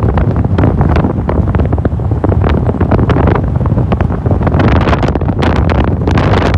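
Heavy wind buffeting the microphone in a moving car: a constant low rumble broken by frequent crackling gusts, over the sound of the car driving.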